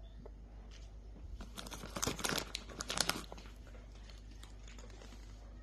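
Packaging crinkling as it is handled, in a crackly burst that lasts about two seconds and starts a little over a second in.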